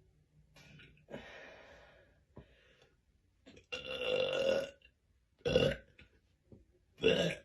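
A woman burping: a softer breathy sound about a second in, then a long pitched burp about four seconds in, followed by two short, sharp burps.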